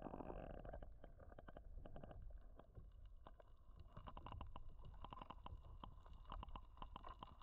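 Faint muffled underwater sound picked up by a submerged camera: a low watery rumble with many scattered sharp clicks and crackles.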